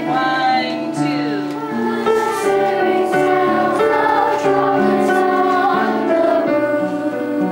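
Children's choir singing, accompanied by an upright piano.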